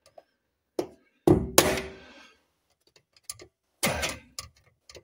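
Screwdriver knocked against the fuel pump locking ring on a steel fuel tank, driving the ring round to loosen it. A series of sharp metallic knocks, the loudest two about a second and a half in, the louder ones leaving a brief ring.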